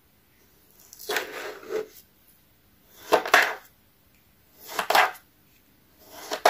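A kitchen knife slicing through homemade kinetic sand onto a wooden board, four gritty scraping strokes about a second and a half apart.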